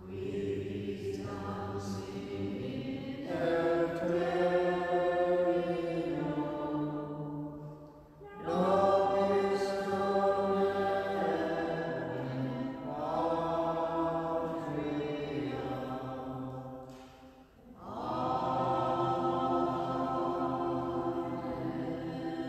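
Slow sung chant or hymn with long held notes, in three long phrases separated by short pauses for breath.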